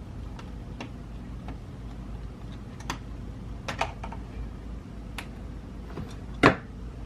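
Scattered small clicks and taps of a screwdriver working screws out of an ASUS X555L laptop's plastic screen bezel, with one louder knock near the end.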